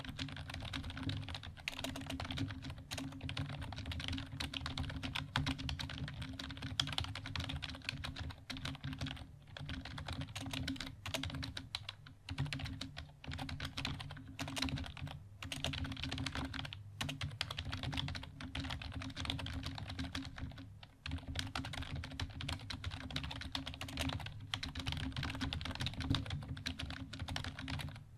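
Stock HP KU-1156 rubber-dome membrane keyboard being typed on fast and continuously, a dense run of soft clicking keystrokes with a couple of brief pauses. The keyboard is unmodified and unlubricated.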